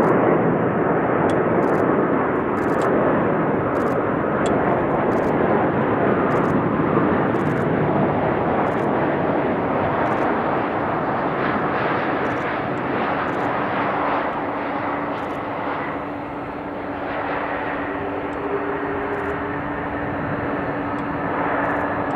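Airbus A330-300 airliner's jet engines during final approach and landing: loud, steady jet noise that eases a little after the wheels touch down about halfway through, with a faint steady hum in the later part.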